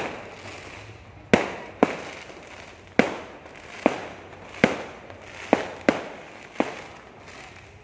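Aerial fireworks bursting overhead: a run of about nine sharp bangs at uneven intervals, some close together, each trailing off in an echo.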